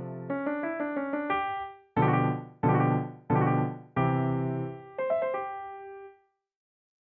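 Piano playing: a quick run of notes, then four loud chords struck about two-thirds of a second apart, a short flourish, and a last note that dies away into silence about six seconds in.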